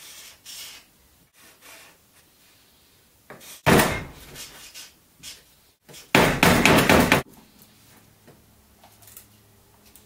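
Objects knocked and handled on a tabletop: a sharp knock about four seconds in, then about a second of rapid rattling clatter around six to seven seconds. Faint scratching of felt-tip markers on paper lies between.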